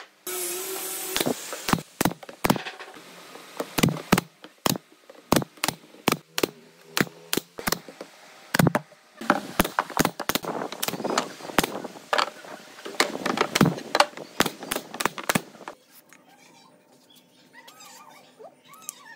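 Pneumatic brad nailer firing into softwood, a run of sharp shots at an uneven pace that stops a few seconds before the end.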